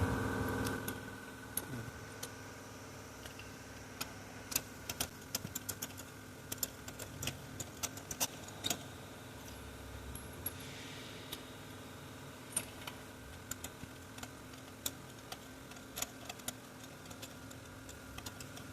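Scattered light metallic clicks and clinks from a ratchet, extension bar and spark plug socket as new spark plugs are fitted into a Toyota Camry engine, over a steady background hum.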